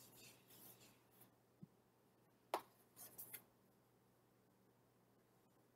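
Faint rubbing of an eraser across a small dry-erase whiteboard, then a sharp click about two and a half seconds in, followed by a few short marker strokes on the board.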